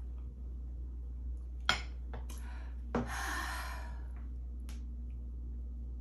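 Two sharp knocks, the first a little under two seconds in and the second about three seconds in, with a few small clicks and about a second of rustling after the second knock, all over a steady low hum.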